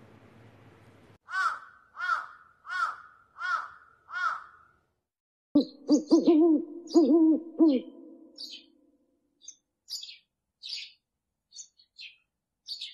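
Gibbon hooting: five high hoots that rise and fall, about two-thirds of a second apart, then a quick run of lower, fuller hoots. Short high chirps are scattered through the second half.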